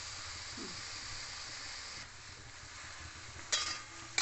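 Prawns and ground spice paste sizzling in hot oil in a metal kadhai. The sizzle eases about two seconds in, then a metal spatula scrapes and knocks against the pan twice near the end as the prawns are stirred.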